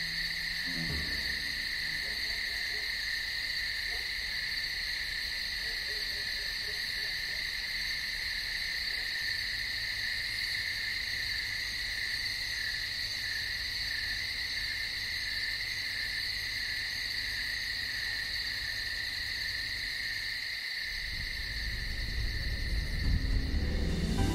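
Cicadas singing in a steady, unbroken high-pitched chorus.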